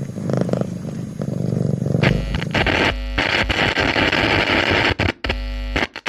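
Harsh electronic static noise. A buzzing hum for about two seconds, then a loud, dense hiss that stutters and cuts out abruptly several times near the end.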